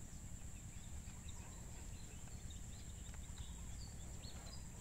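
Outdoor ambience: a few short, faint bird chirps scattered over a steady high-pitched insect drone and a low wind rumble.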